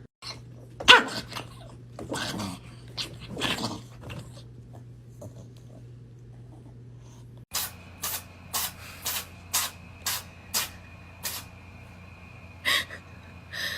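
A dog making a few short, loud sounds, the loudest about a second in. After a cut, a run of sharp clicks about two a second.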